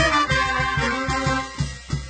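Brass band playing a tune with horns over a bass drum keeping a steady beat; the sound thins out and drops in level near the end.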